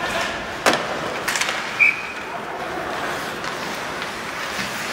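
Ice hockey play on an arena rink: skates scraping the ice, with sharp clacks of sticks and puck about two-thirds of a second and a second and a quarter in. A short high ping comes a little under two seconds in.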